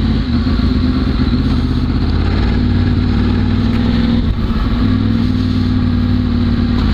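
A 2011 Yamaha R1's crossplane inline-four running through its K-Factory titanium race exhaust, held at low revs in first gear at a steady cruise, with a brief dip about four seconds in. Wind rushes over the bike-mounted microphone.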